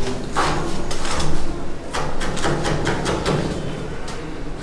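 Kitchen knife chopping on a wooden cutting board: a run of knocks as the blade strikes the board.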